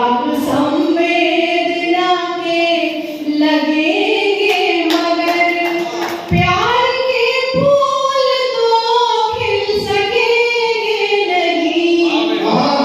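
A woman singing a Hindi love song (prem geet) solo and unaccompanied into a microphone, holding long notes that slide up and down in pitch.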